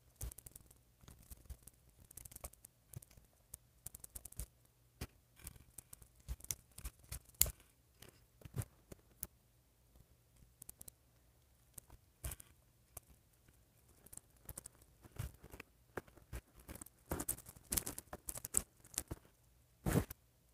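Hands handling the small plastic pieces of a Lotta Looks doll while swapping its look: scattered light clicks, taps and rustles, coming thickest in the last few seconds.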